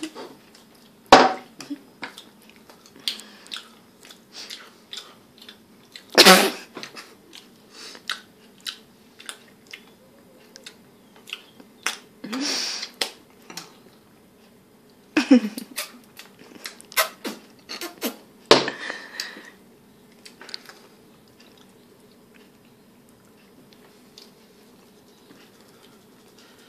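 Close-up chewing and mouth noises from someone eating a soft chocolate-topped pastry: irregular wet smacks and clicks with a few louder bursts. These stop about twenty seconds in.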